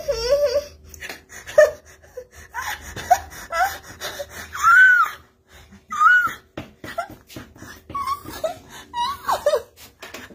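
A woman crying out in pain: gasps, whimpers and short high wails that rise and fall, broken by sharp breaths.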